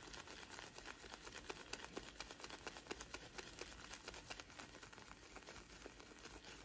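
Synthetic shaving brush swirled against a wet puck of mug shaving soap, loading the brush: a faint, rapid, scratchy swishing of bristles.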